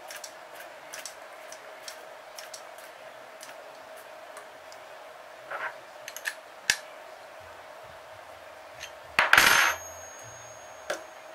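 Small metal clicks and clinks from a wrench and a Saito FA-45 model engine being handled on a bench mat, over a faint steady hum. A sharp knock comes about two-thirds of the way in, and a louder metal clatter with a brief ring comes near the end.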